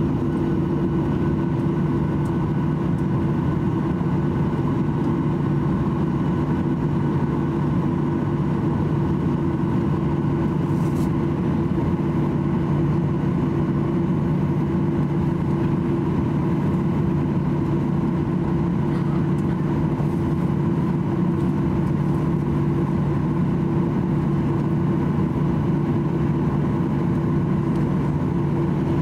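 Boeing 737-800's CFM56 jet engines at idle during pushback, heard inside the cabin as a steady hum with a low drone and a few fixed tones.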